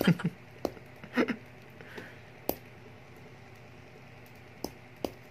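Light handling noises over a quiet room: a few scattered soft taps and clicks as crushed oregano leaves are handled, with a brief fuller rustle about a second in.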